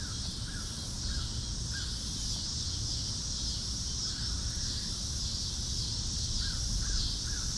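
Outdoor creek ambience: a steady high insect drone with faint crow caws, a run of four spaced about a second apart near the end, over a low rumble.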